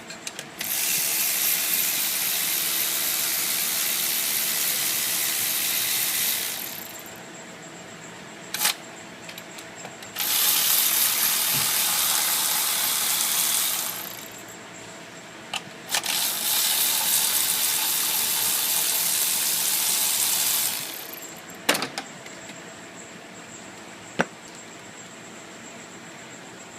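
Three long bursts of steady hiss, each lasting four to six seconds and tapering off at the end, with sharp clicks and knocks of tools between them.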